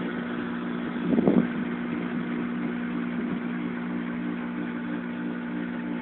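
Electric pool pump motor running, a steady hum with a few even tones. A short louder noise comes about a second in.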